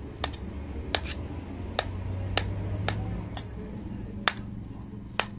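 Metal spoon clinking against a stainless steel bowl while mashing boiled potatoes: about ten sharp clinks at uneven intervals, over a steady low hum.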